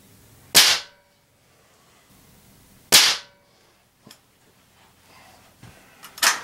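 Ruger Air Magnum spring-piston air rifle firing: two sharp cracks about two and a half seconds apart, then a faint click and another sharp crack starting at the very end. The RWS Hobby 7-grain pellets are leaving at about 1209 fps, above the speed of sound.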